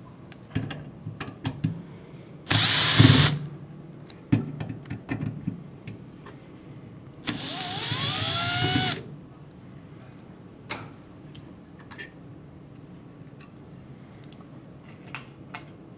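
Cordless driver backing out screws in two runs: a short one about two and a half seconds in and a longer one of about a second and a half near the middle. The motor's whine shifts in pitch as it spins. Light clicks and knocks of the metal parts being handled come between and after the runs.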